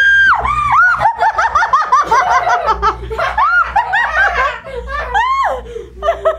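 Several high voices squealing and laughing excitedly, the calls overlapping, beginning with one long held squeal.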